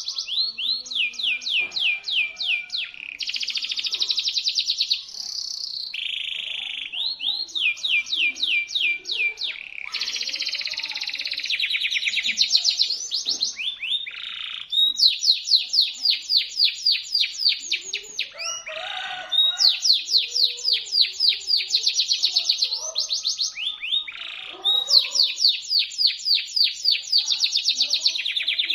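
Local canary singing a shrill, continuous song of rapid rolls and trills, switching to a new phrase every few seconds.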